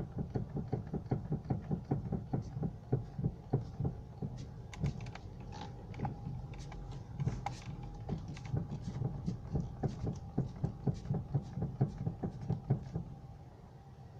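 Electric power steering rack of a Honda Civic sedan knocking in a fast, even rhythm of several dull knocks a second, stopping about a second before the end. The knock comes from broken plastic bushings in the rack and a worn rack shaft.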